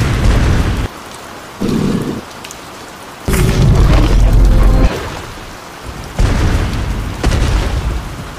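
Steady rain with loud rumbling thunder breaking in four times; the longest and loudest rumble comes about midway.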